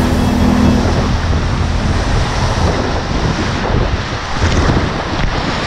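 Whitewater rapid rushing and crashing around a kayak, heard close up from the boat.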